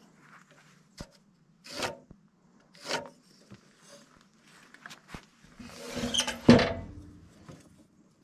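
Steel carpenter's square and pencil worked against a freshly sawn timber: two short scratchy strokes, then a longer, louder scrape that ends in a sharp knock about six seconds in, as the square is shifted into place.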